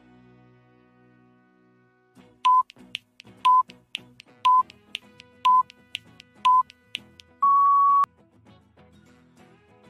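Countdown-timer sound effect: five short electronic beeps about a second apart, then one longer, slightly higher beep that marks time up, over quiet background music.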